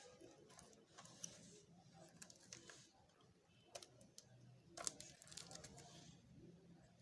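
Faint handling noises: scattered light clicks and short rustles, with the sharpest click about five seconds in, as the unboxed receiver and its packaging are handled.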